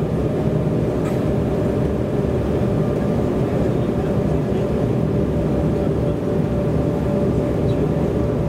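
Steady cabin drone of an Embraer E190 jet's GE CF34-10E turbofan engines at low taxi power, with a constant whine held over a deep rumble, as the airliner taxis and lines up on the runway.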